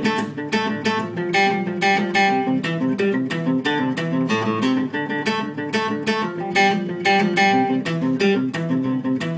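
Acoustic guitar playing a short instrumental passage between sung lines, a quick run of picked and strummed notes.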